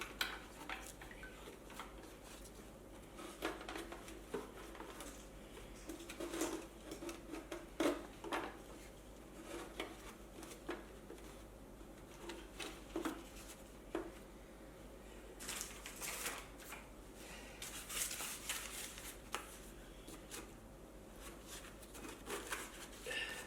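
Scattered clicks, knocks and rustling of hands working on an electric unicycle's wheel, cable and shell during reassembly, with a denser stretch of scraping about two-thirds of the way through.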